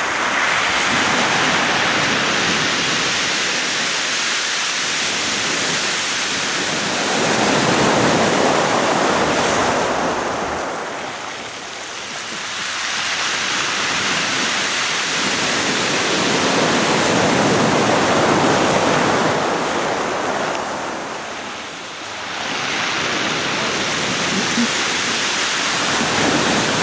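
Sea surf breaking and washing up a beach, a steady hiss that swells and eases about every ten seconds.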